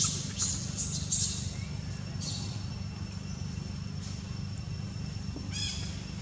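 Short, high-pitched chirping calls, several in the first second or so and one more a little later. Near the end comes a quick run of falling squeaks, all over a steady low hum.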